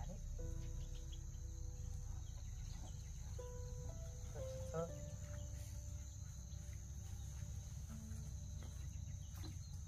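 Steady high-pitched insect trill over a low rumble, with soft background music of slow held notes.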